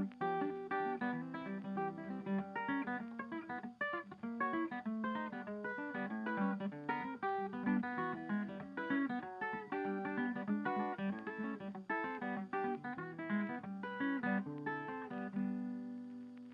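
Background music of fingerpicked acoustic guitar, a quick run of plucked notes over a low bass line, fading out near the end.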